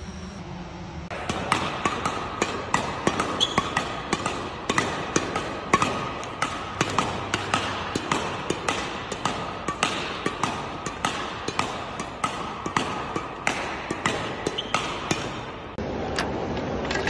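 Badminton racket striking shuttlecocks in quick succession, about three sharp hits a second, as in a rapid multi-shuttle smash drill. Near the end the hits stop, giving way to the steady running of a dumpling-making machine.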